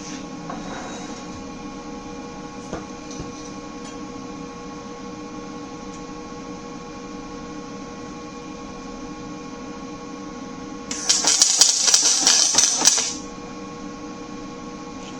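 Arc welding: a short weld bead of about two seconds crackles loudly near the end, over a steady electrical hum.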